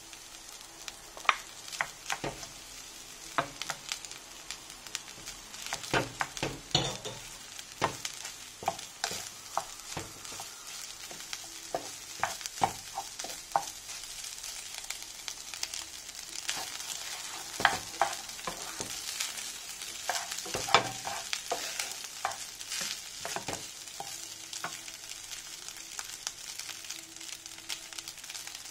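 Fried rice sizzling in a frying pan while a wooden spatula stirs and breaks up lumps of rice, with frequent sharp knocks and scrapes of the wood against the pan over a steady sizzle.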